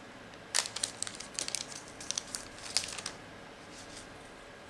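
A test strip's sealed plastic pouch being torn open and crinkled by hand: a run of short crackles from about half a second in to about three seconds in.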